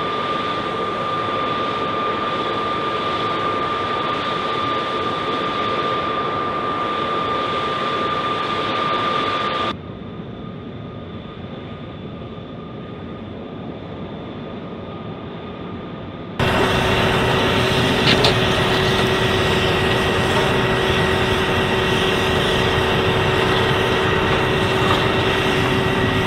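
Jet aircraft engine running with a steady high whine over a broad rush, heard in three spliced clips. The sound drops off abruptly about ten seconds in and jumps back louder a few seconds later.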